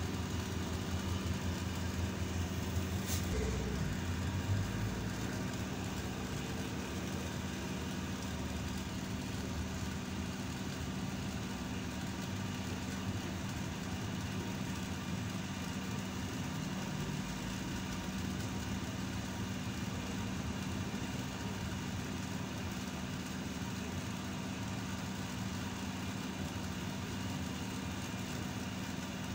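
ZiU-682G trolleybus heard from inside: a steady electrical hum with faint high whining tones from its electric machinery. A single sharp click comes about three seconds in, and after it the low rumble eases.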